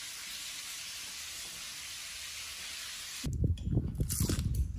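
Steady hiss of frying oil sizzling. About three seconds in, it cuts off abruptly to close-up, irregular crunching and chewing of a piece of batter-fried crayfish, the loudest part.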